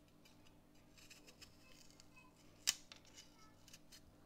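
Kitchen knife cutting the cores out of raw apple quarters held in the hand: quiet crisp cuts, with one sharper snap a little over halfway through.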